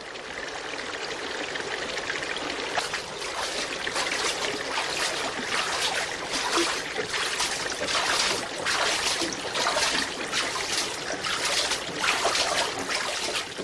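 Water running steadily from the spouts of a stone fountain and splashing into its trough.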